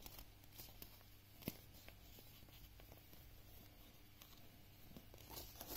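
Near silence with faint handling sounds: paper rustling and small clicks as pipe cleaners are twisted onto a folded paper butterfly, with one sharper click about one and a half seconds in.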